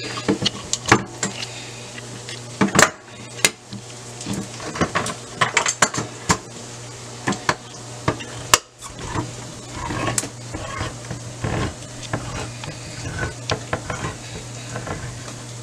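Hand-crank can opener cutting around the lids of cans of kidney beans: a run of irregular metal clicks and scrapes, over a steady low hum.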